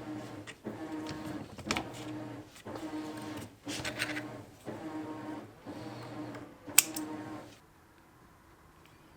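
A small motorized machine running in repeated stretches of about a second with brief pauses between, with a few sharp ticks, then stopping near the end.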